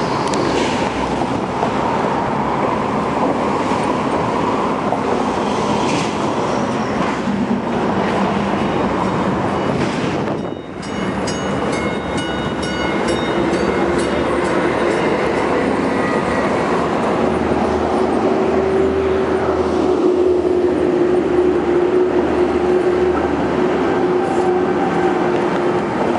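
Baltimore Light Rail cars running on the tracks, with steady wheel and running noise. After a cut about ten seconds in, a car runs close by with several thin high whines, and from about two-thirds of the way through a steady lower motor whine that rises slightly and holds.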